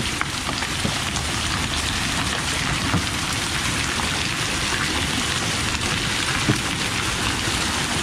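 Heavy rain mixed with hail pelting down, a steady dense hiss with a few sharper ticks of hailstones striking.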